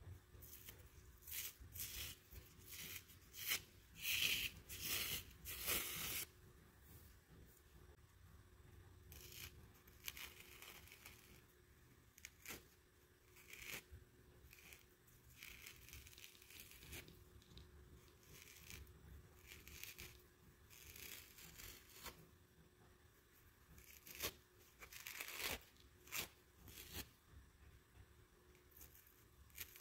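Pink kitchen sponges with scouring-pad layers being torn by hand: a run of short, crackly rips, dense and loudest in the first six seconds, then sparser rips with pauses between them.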